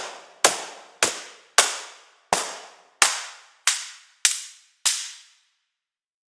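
Sampled cardboard-box percussion from the Box Factory Kontakt library: about eight sharp, bright hits a little over half a second apart, each with a short reverb tail. The hits stop about five seconds in.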